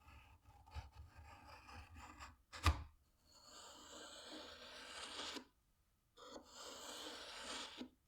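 Light knocks and one sharp knock, then two long rasping strokes of a hand file or rasp across wood, likely the new ash wood handle being shaped by hand.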